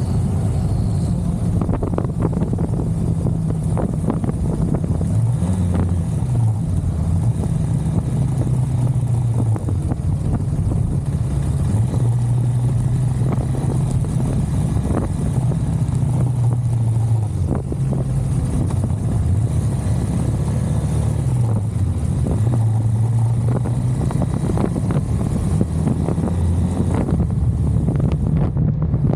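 KTM 390 Adventure's single-cylinder engine running on the move, its note rising and falling several times, with wind noise over the microphone.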